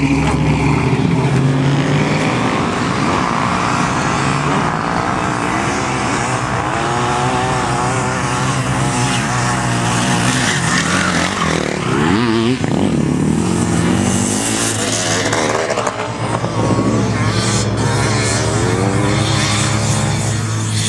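First-generation Ford Bronco's engine revving hard under load as the 4x4 climbs a soft sand dune. The pitch rises and falls with the throttle, sweeps sharply upward about twelve seconds in, then settles to a steadier drone.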